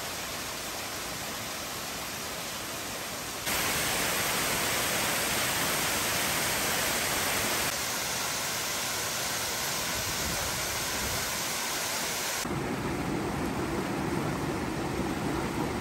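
Waterfall rushing: a steady roar of falling water that jumps louder about 3.5 s in and eases slightly about 8 s in. About 12.5 s in it changes to a lower, softer rush of shallow water running over rock.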